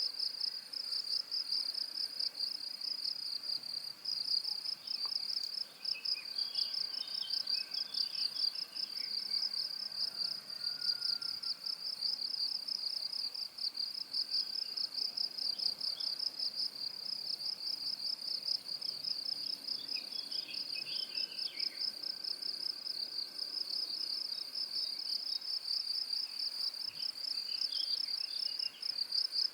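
Cricket chirping in a continuous, high-pitched fast trill. Faint, brief chirps come and go in the background a few times.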